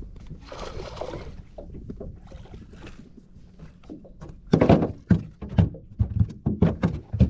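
A run of sharp knocks and thumps in a small aluminium boat, several a second, starting about four and a half seconds in while a hooked bass is played to the boat. Before that there is a softer rustling hiss.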